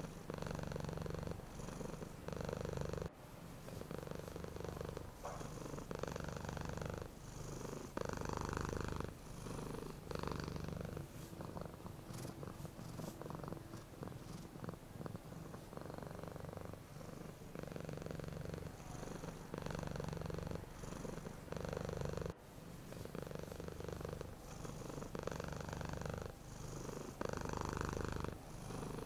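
Domestic cat purring close up, the purr pulsing in roughly one-second swells with each breath in and out. It is softer for a few seconds in the middle.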